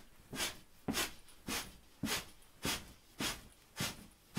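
Sharp, short exhales in a steady rhythm, about two a second, from a person jogging in place with high knees and punches, breathing out on each punch.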